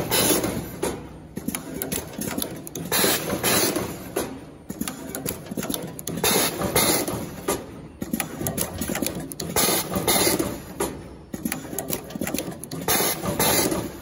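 Automatic wire cutting, stripping and double-end terminal crimping machine running, repeating its cycle about every three seconds: a run of mechanical clatter and crimping clicks with bursts of hiss in each cycle.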